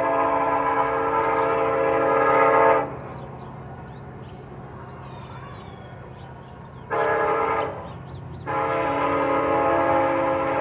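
Train horn sounding a multi-note chord: a long blast that stops about three seconds in, a short blast near seven seconds, then another long blast, over the steady low rumble of the train running.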